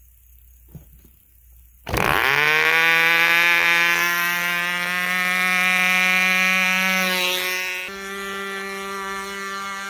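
Torpedo .19 glow engine on a free-flight power model starting about two seconds in, winding up quickly and then running flat out with a steady, high-pitched buzz. About eight seconds in it becomes quieter as the model climbs away.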